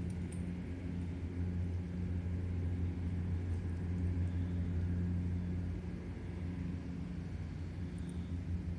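A steady low mechanical hum, as of an engine or motor running, with a brief faint jingle of dog collar tags near the end.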